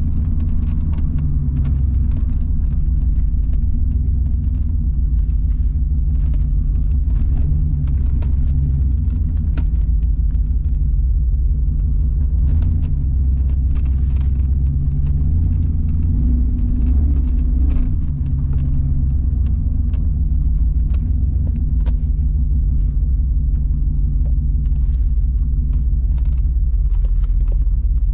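1994 Pontiac Firebird Trans Am's LT1 V8 running under way, a steady deep rumble heard from inside the car. Its pitch shifts a little now and then with the engine speed, and the loudness dips briefly near eighteen seconds in.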